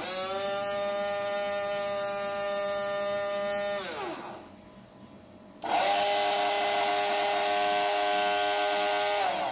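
Small electric motors switched on and off twice. Each time a steady whine starts suddenly, runs for about four seconds, then winds down with a falling pitch as the power is cut.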